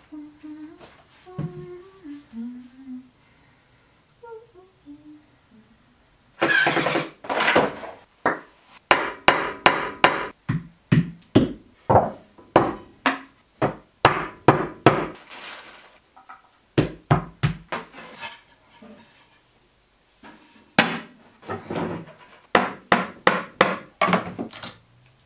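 A woman humming a tune softly for a few seconds, then a long run of quick knocks and thuds of wooden flat-pack boards and dowels being handled and fitted together, two to three knocks a second, pausing briefly and starting again near the end.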